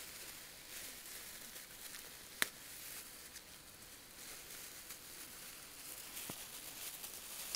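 Thin plastic bag crinkling and rustling as hands struggle to tear it open, with one sharp click about two and a half seconds in.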